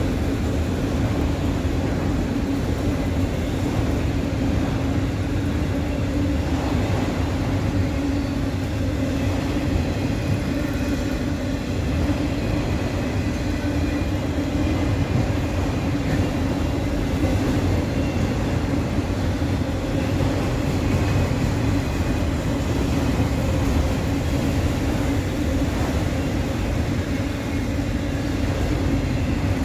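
Autorack freight train rolling past, its cars' wheels on the rails making a steady rumble with a constant droning tone.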